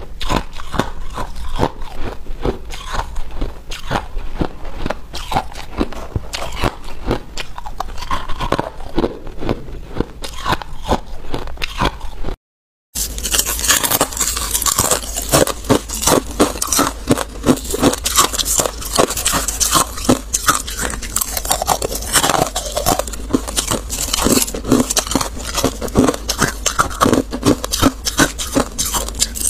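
Ice being bitten and chewed: dense, rapid crunching of crushed white ice, then crisper crunching of frost-covered ice. The sound cuts out completely for about half a second, about twelve seconds in.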